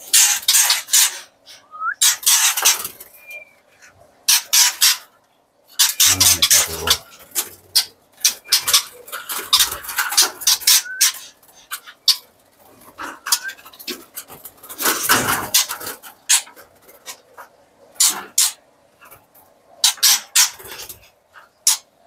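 Irregular bursts of rustling and flapping inside a wire-mesh aviary as a man moves about with a scoop net and young white-rumped shamas flutter around him. A few short rising bird chirps, and a dull thump about six seconds in.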